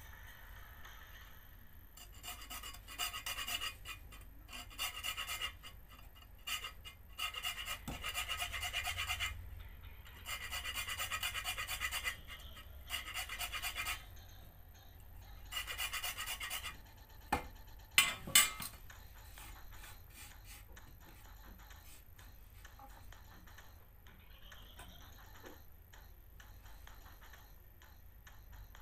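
Hand hacksaw cutting through a plastic toothbrush handle: bursts of rasping saw strokes for about fifteen seconds. Then a few sharp clacks, the loudest sounds, followed by quiet handling.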